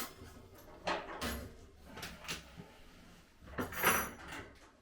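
Barbecue parts knocking and clattering as they are handled and fitted during assembly: a few separate knocks, with the loudest, longer clatter near the end.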